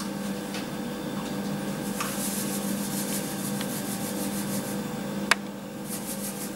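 Light rustling of a dry-yeast sachet being handled and tipped into the Thermomix bowl, with a few soft clicks and one sharp click about five seconds in, over a steady low hum.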